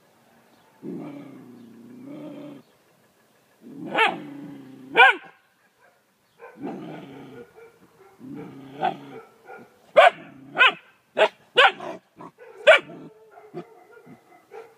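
A dog growling low in drawn-out bursts at a cat. It breaks into two high yelping barks about four seconds in, then a quick run of about six short sharp barks near the end.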